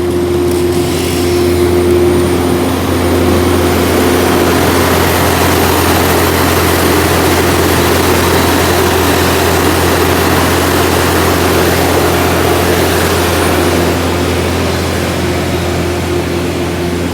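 Heavy engines of tree-removal machinery running steadily, with a louder, noisier stretch through the middle.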